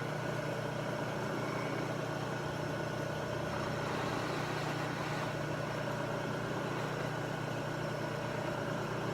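Milling machine running steadily, its end mill taking a pass along an aluminium part.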